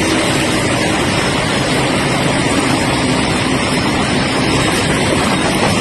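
Steady traffic noise: vehicle engines running low under a constant loud hiss.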